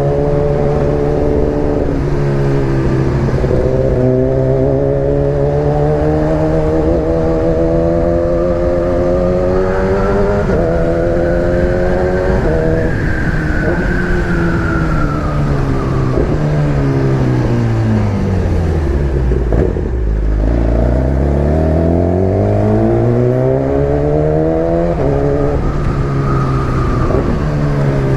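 Motorcycle engine heard from the rider's seat, its revs climbing and dropping back several times as it shifts up through the gears. The revs fall steadily to a low point about twenty seconds in, then climb again, with a steady rush of noise underneath throughout.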